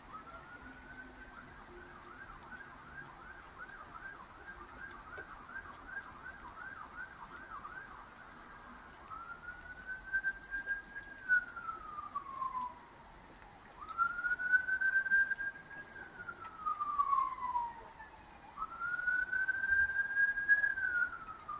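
Emergency vehicle siren, first in a fast yelping warble for several seconds, then switching to a slow wail that rises, holds and falls about every four to five seconds.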